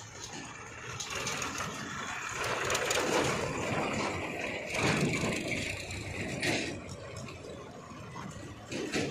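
Farm tractors with trailers driving past on a road, their diesel engines running and growing louder as each one goes by.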